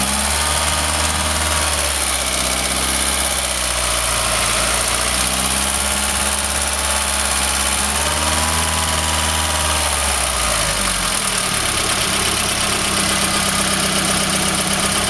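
Volkswagen Golf GTI 1.8-litre inline-four engine idling. Its note wavers gently twice, then settles into a different steady pattern about eleven seconds in.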